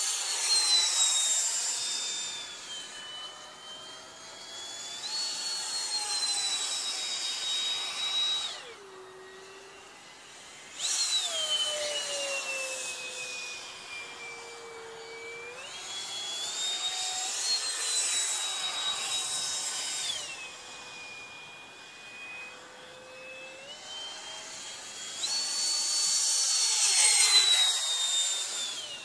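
High-pitched whine of a 64 mm electric ducted fan (4300 kV motor) in a radio-controlled L-39 Albatros jet model flying overhead. The pitch steps up and down as the throttle changes and slides down as the model passes. About nine seconds in the fan is throttled back and goes quiet for about two seconds, then spools up again.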